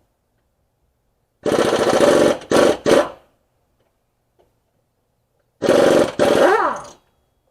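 Impact wrench hammering on wheel lug nuts in two bursts of about a second and a half each, the second shifting in pitch as it stops.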